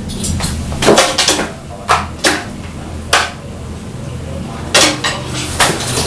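A pet crow's beak and claws on its perch, making about seven sharp, irregular clacks and knocks. A steady low hum runs underneath.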